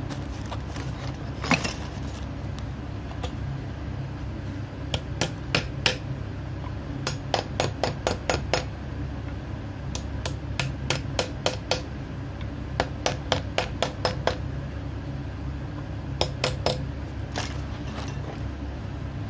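Small hammer tapping a metal rod to drive a ferrule down onto a horn knife handle. The taps come in quick runs of several light, sharp strikes with short pauses between, over a steady low hum.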